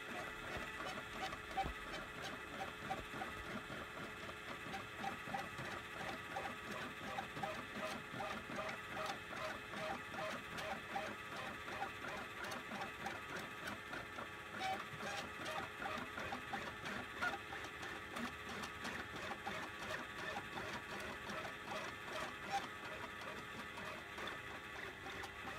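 Stepper motors of a CNC gantry pen plotter running as the pen traces curved strokes: a steady whine of several held tones with a fast, even pulsing.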